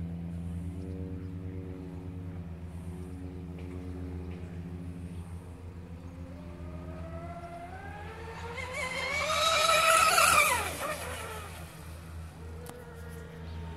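Radio-controlled carbon-fibre catamaran speedboat running fast past the bank: its motor's whine climbs in pitch and loudness, is loudest about ten seconds in, then drops in pitch and fades as the boat goes away.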